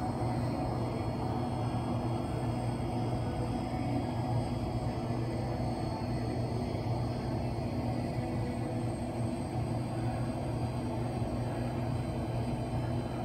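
Steady low rumble and hum of an indoor swimming pool hall, unchanging throughout, with a few faint steady tones above it.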